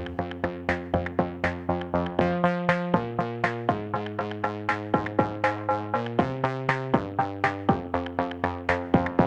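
Background music: a steady run of quick plucked notes over held chords, about four notes a second.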